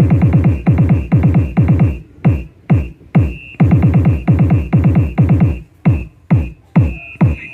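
Electronic dance remix played loud through an Atomic 12-inch loudspeaker on a sound test. It has rapid rolls of deep kick-drum hits that drop in pitch, broken by brief pauses and single hits near the end.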